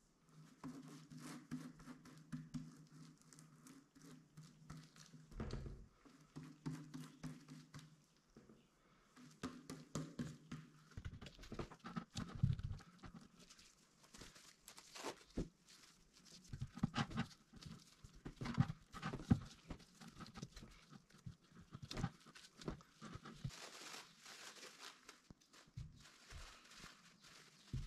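Faint handling sounds of paper towel and a plastic jug: rustling, pressing and light taps, coming as irregular short clicks. A low steady hum runs underneath for the first ten seconds or so.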